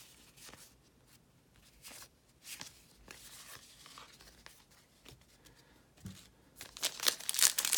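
Baseball cards handled with faint rustles and taps, then, from about two-thirds of the way in, a plastic card-pack wrapper crinkling loudly as it is torn open.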